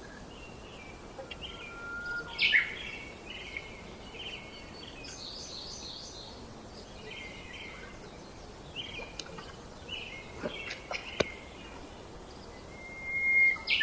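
Birds chirping in short, repeated call groups, with a few sharp clicks about eleven seconds in.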